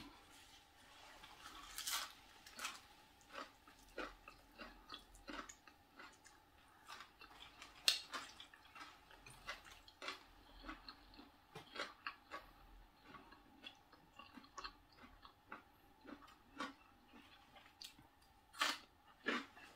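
A person chewing and biting crunchy fresh leaf wraps and raw greens: many small, irregular crunches and clicks, the sharpest about two and eight seconds in.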